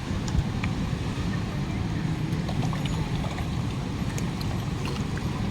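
Steady low rumble of a boat under way, with a few faint ticks and splashes over it.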